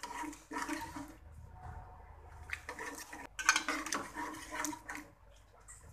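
A metal spoon stirring and scraping through beef in wet gravy in a stainless-steel karahi, the meat and liquid sloshing in the pan. The stirring comes in several bouts, the longest in the second half.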